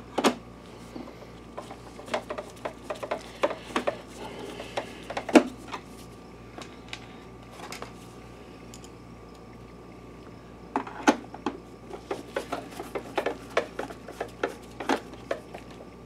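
Scattered light clicks and knocks on the plastic case of an Optoma WU515 projector as screws are driven in with a screwdriver and the housing is handled. There is a quieter stretch of a few seconds in the middle.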